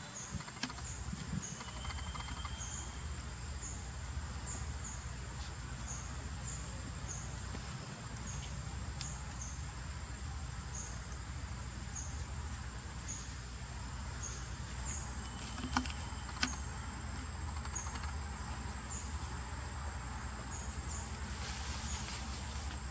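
Insects chirping in the background: a steady high-pitched drone with a short chirp repeating about once a second, over a low steady rumble. Two sharp clicks a little past the middle.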